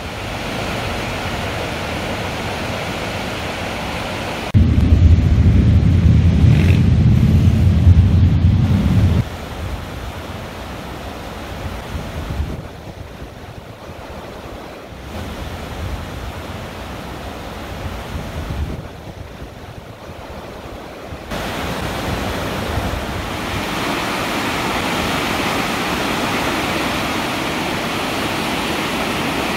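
Rushing water of the Kawarau River rapids, a steady roar, with wind on the microphone. A heavy low wind rumble swamps it from about four and a half to nine seconds in.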